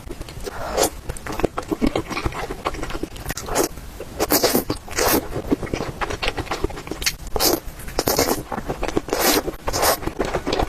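Close-miked eating of spicy noodles and dumplings: a run of short, hissing slurps and wet chewing noises, several a second apart, with no talking.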